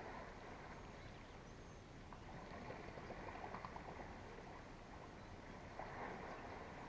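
Faint outdoor ambience: a steady low rumble of wind on the microphone with scattered faint ticks and rustles.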